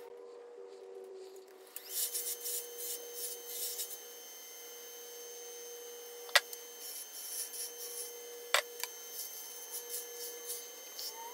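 Wood lathe running with a steady hum while a carbide turning tool cuts a small maple pawn in spurts, a scraping, rasping sound of shavings coming off. Two sharp clicks come about 6.5 and 8.5 seconds in.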